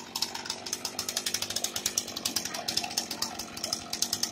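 Gas chainsaw running at idle, its engine making an even, fast pulsing.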